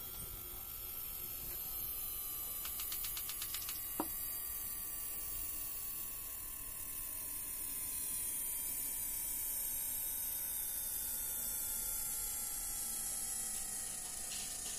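Small electric cup turner motor running steadily, a faint hum and a whine that drifts slowly lower, as it rotates a freshly resined tumbler. About three seconds in there is a quick run of ticks, then a single sharp click.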